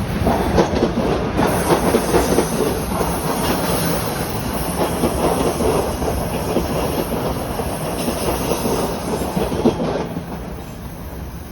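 TTC Toronto Rocket subway train passing, its wheels clacking steadily over the track. It fades about ten seconds in.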